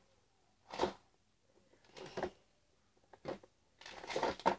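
A few short, soft rustles of hair being handled as it is plaited, four in all, the last two close together near the end.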